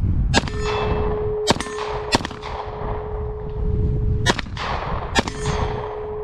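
Canik SFX Rival 9 mm pistol fired five times at an uneven pace: three shots about a second apart, a two-second pause, then two more. A steady metallic ring from a hit steel target hangs between the shots.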